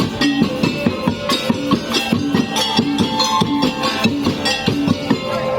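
Madurese tong-tong (musik daul) percussion ensemble playing a fast, even rhythm of struck drums and percussion, with repeated pitched notes over the beat.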